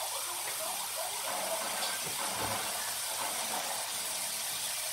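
Bacon pieces frying in a non-stick wok, giving a steady sizzling hiss.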